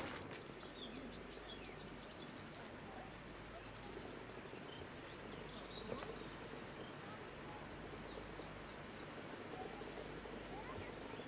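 Small birds chirping in quick, high calls, busiest in the first few seconds and again about five seconds in, over a steady background hiss.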